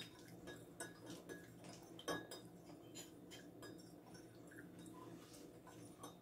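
Faint clinks and taps of a spoon against a coffee mug as sugar is added and stirred in, the loudest clink about two seconds in.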